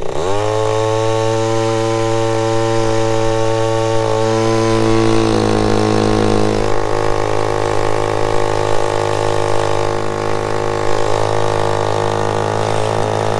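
Mitsubishi TL20 engine on a 1-inch water pump revving up quickly right at the start, then running steadily at high speed as it pumps water through the hose to push the boat.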